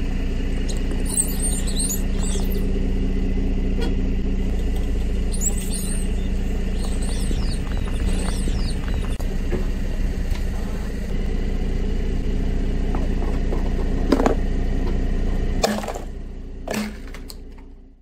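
Car engine running slowly as its tyre rolls over a heap of rubber ducks. High squeaks come from the ducks being squashed about a second in and again around six seconds. A few sharp knocks near the end, then the sound fades out.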